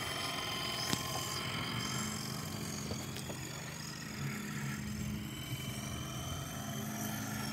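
Feilun FX070C MD500-scale RC helicopter in flight: a steady hum from its electric motor and rotor, with a thin high whine above it.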